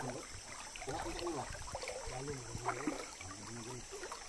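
Steady rushing of a fast, flood-swollen river, with faint bits of men's voices talking over it several times.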